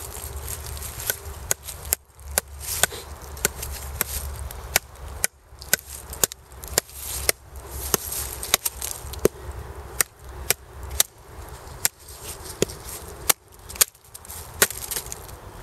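Batoning: a wooden stick strikes the spine of a Ka-Bar USN Mark 1 knife, driving the blade down through a standing log to split it. Sharp knocks come about two a second, with a few brief pauses.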